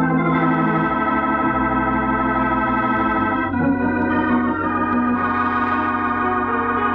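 Organ music bridge: sustained chords that change a couple of times, marking a scene change in a radio drama.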